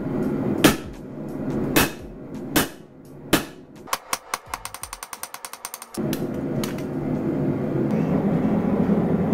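Hammer blows on red-hot 1080 steel bar laid over a hot-cut hardy on the anvil, cutting off the excess: four heavy strikes a little under a second apart, then a quick run of light taps. About six seconds in, a gas forge's burner takes over, running with a steady rushing sound.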